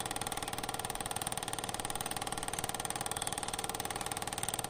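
Film projector running: a steady mechanical whirr with a fast, even clatter of many beats a second over a constant hum.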